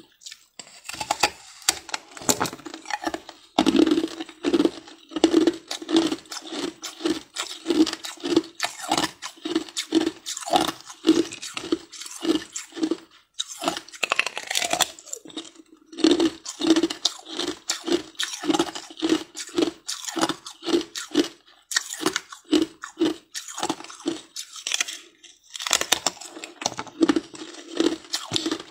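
Ice crunching between teeth: bites taken off a clear frozen block of ice, then steady chewing at about one to two crunches a second, with a short pause around the middle.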